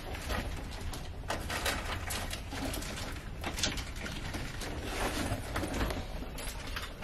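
Rustling and handling noise from a camera being moved about on bedding, with scattered soft clicks over a low steady rumble.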